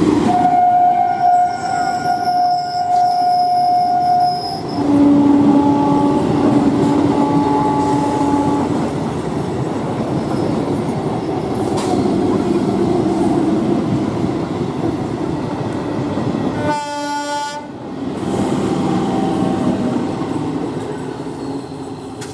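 EMU local train running past close by with a continuous rumble and wheel clatter. Train horns sound over it: a long high blast of about four seconds starting just after the start, then a lower blast of about four seconds, and a short blast with many overtones about seventeen seconds in.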